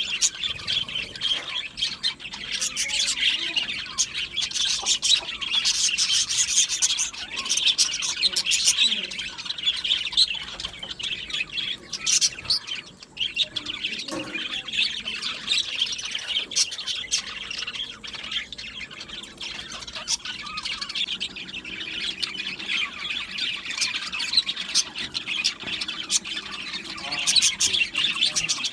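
A flock of budgerigars chattering and chirping together, with scattered squawks over a continuous warble.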